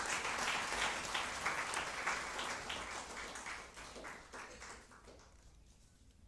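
Audience applauding, many hands clapping together, the applause dying away over about five seconds.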